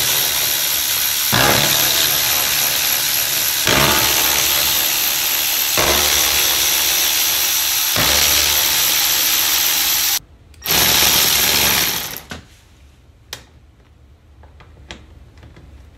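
Milwaukee cordless ratchet running in a series of long spurts, spinning out the screws that hold the fuel pump unit in the top of the Jeep's gas tank. It stops briefly about ten seconds in, runs once more, then falls quiet about twelve seconds in, leaving a few light clicks.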